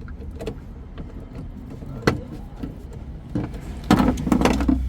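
Scattered sharp metallic clicks and knocks of hand work on the vehicle, thickest near the end, over a low steady hum.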